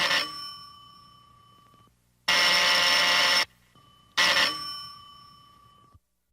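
A bell struck once and ringing out, fading over about two seconds, then a loud, continuous ring lasting about a second, then another single strike ringing out and fading.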